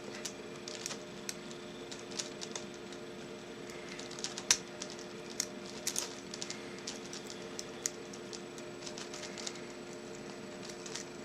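Lock pick and tension wrench working the pin stack of a 6-pin euro cylinder lock, feeling for the false set. Small irregular metallic clicks and ticks come a few a second, one sharper click about four and a half seconds in.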